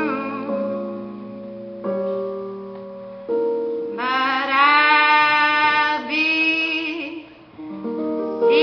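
A young woman singing solo into a microphone over an instrumental accompaniment. For the first few seconds only the accompaniment's chords are heard, each fading before the next; her voice comes in about four seconds in with long, wavering held notes, breaks off briefly, and returns near the end.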